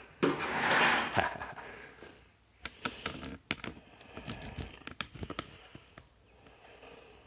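Plastic case of a Casio Casiotone CT-360 keyboard being pried apart: a scraping creak, then a run of sharp plastic clicks and snaps.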